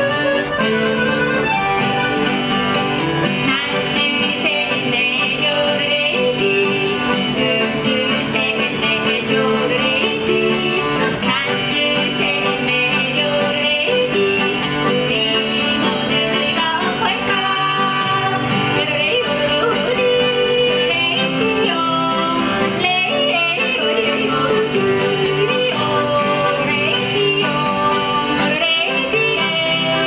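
Two women singing and yodeling a polka-time yodel song in duet, accompanied by accordion and acoustic guitar. The accordion and guitar play alone for the first couple of seconds before the voices come in.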